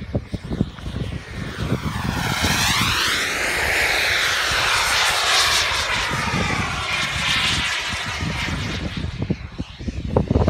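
Miniature turbine engine of an RC model jet whining and rushing as the jet makes a low pass, the pitch sweeping up and then falling as it goes by, with a further pass later on.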